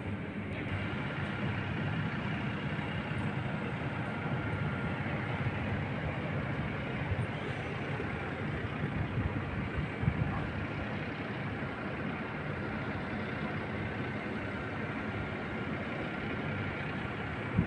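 Steady rumble of an engine running at idle, with a faint steady whine above it.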